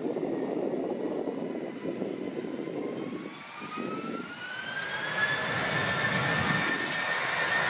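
Jet engines of an Airbus A320 spooling up on the runway: a rumble, then from about three seconds in a whine that rises in pitch and settles on a steady note as the engines reach take-off power, growing louder near the end.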